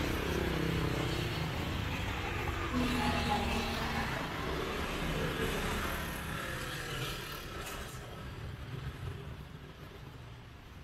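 Street traffic: a motor vehicle's engine passes close by, falling in pitch as it goes, and the traffic noise fades over the last few seconds.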